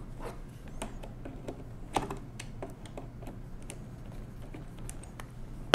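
A screwdriver backing a small screw out of the side panel of a 1920s Monroe mechanical calculator: scattered light clicks and ticks, with a sharper click near the end.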